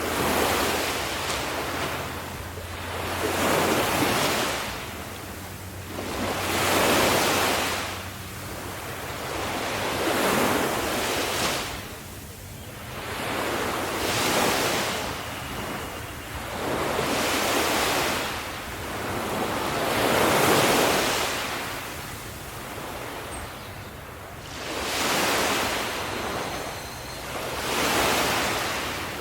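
Ocean waves breaking on a shore, each surging up and washing back, about every three seconds.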